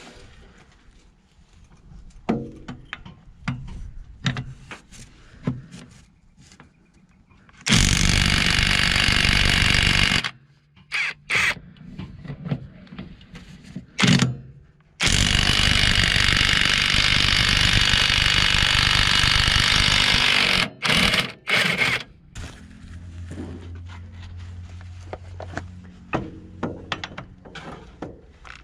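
Cordless 1/2-inch-drive right-angle impact wrench hammering: a loud burst of about two and a half seconds, a few short blips, then a longer run of about six seconds, with handling clatter before and after.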